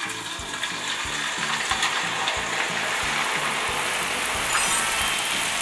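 Strands of fish-cake batter frying in hot oil in a stainless steel pot, with a dense, steady crackle and sizzle.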